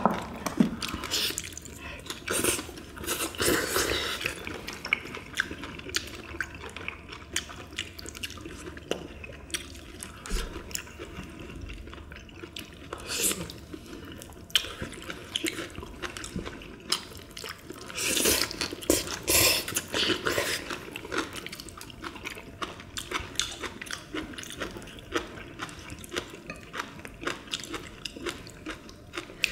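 Several people eating spicy braised monkfish and side dishes: wet chewing and slurping, with irregular clicks of metal chopsticks against dishes, busiest in clusters near the start, about halfway through and around two-thirds of the way in.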